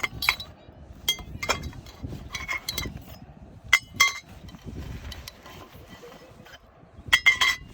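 A series of sharp metallic clinks, each with a brief ring, spaced irregularly, with a quick cluster of them near the end.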